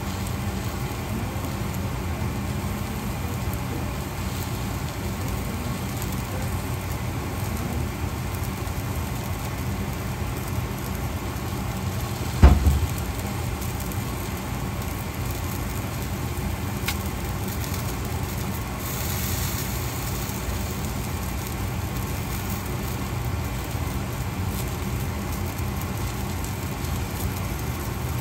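Green beans and onions frying in a pan, a steady sizzle, with one sharp knock about halfway through.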